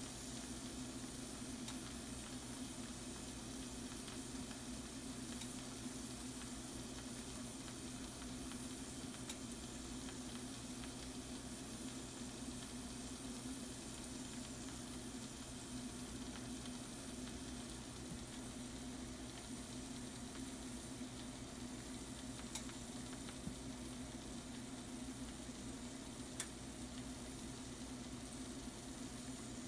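Shrimp and mushrooms sizzling steadily in a frying pan, with a few faint pops.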